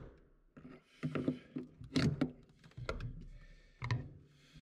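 Several irregular clicks and knocks of a wrench and needle-nose pliers working a plastic mounting peg out of a washer's shock absorber and tub bracket.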